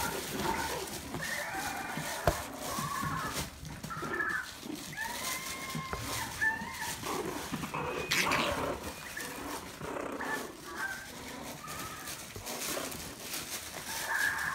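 Maltese puppies yipping and whining in short high-pitched cries while they wrestle and play-fight, with a single sharp tap about two seconds in.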